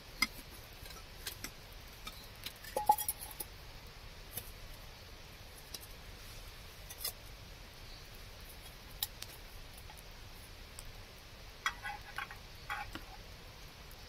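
Small metal camp cookware being handled: scattered light clicks and clinks, one brief ringing clink about three seconds in, and a quick run of clinks near the end as the pot is brought to the camp stove.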